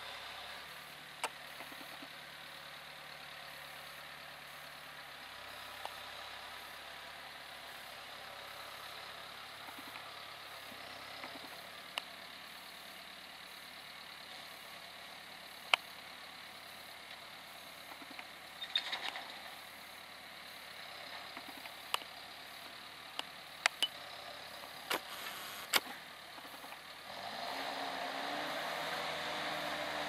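John Deere 6320 tractor's diesel engine working steadily as it pulls a Kverneland four-furrow plough, with several sharp clicks. About three seconds before the end it gets louder, its pitch rising.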